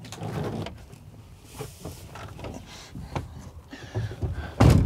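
Truck cab door and handling noises: scattered clunks and knocks as someone climbs into a lorry cab, with a loud thump near the end.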